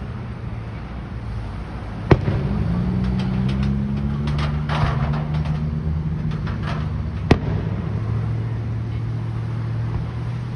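Fireworks going off: a sharp bang about two seconds in, a run of crackling pops, then a second bang about seven seconds in. A steady low engine hum runs underneath.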